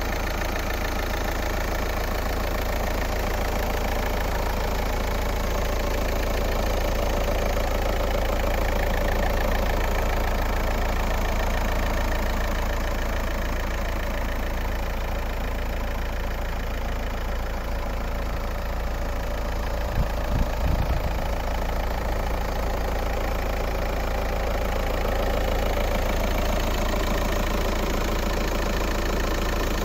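Volkswagen 1.9 TDI (BKC) four-cylinder turbodiesel idling steadily, heard from the open engine bay, with a few low thumps about two-thirds of the way through.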